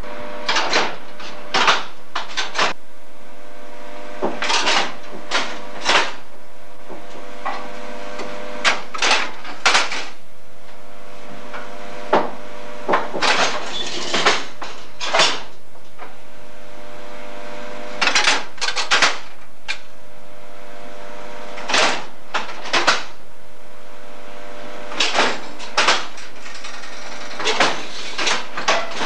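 Short metallic clunks and rattles in small clusters every few seconds, from the iron linkage of a mechanical railway signal box lever frame, over a faint steady hum.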